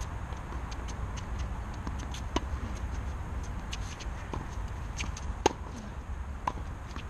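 Tennis ball being struck by rackets and bouncing on a hard court during a rally: sharp single pops about every one to two seconds, the loudest about two thirds of the way through, over a steady low rumble.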